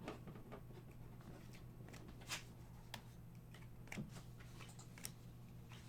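Football trading cards being handled and flipped through, a few soft flicks and taps of card on card, over a low steady hum.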